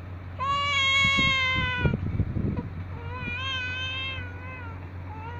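A baby crying in two long, high wails, the first lasting about a second and a half, the second starting about three seconds in.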